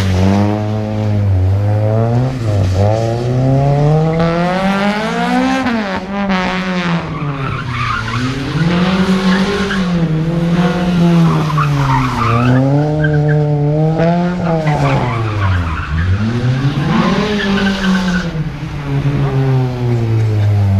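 A car driven hard through a tight motorkhana cone course: its engine revs up and drops back over and over as it accelerates, brakes and turns, and its tyres squeal at several points. The revs fall to a low point about three-quarters of the way through before rising again.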